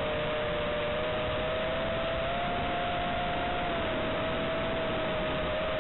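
FPV quadcopter's motors and propellers whining at a steady pitch that drifts slowly up and down with throttle, heard through the onboard camera's microphone under a heavy hiss from the analog video link.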